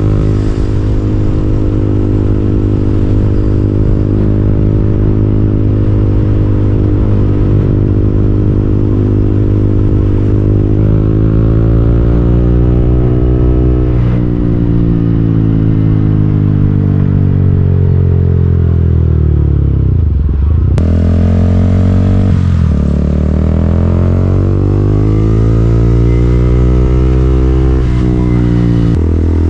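KTM Duke 200's single-cylinder engine under way, holding a steady note for about ten seconds. It then revs up, drops at a gear change, and slows sharply to a low note about twenty seconds in before picking up again.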